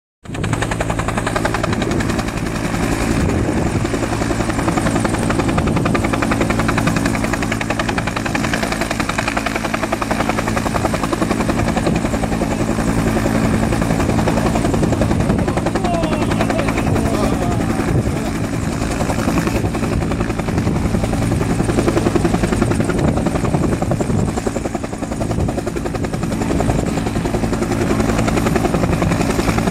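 A UH-1J utility helicopter hovering, the steady beat of its two-bladed main rotor running over the turbine's hum.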